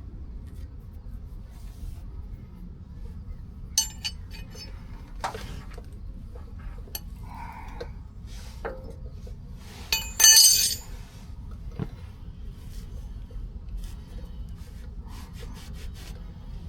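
Sharp metallic clicks and ticks as a tap is worked through a steel sleeve remnant in a steering knuckle's ball joint bore, with a loud ringing metal clank about ten seconds in, over a steady low hum.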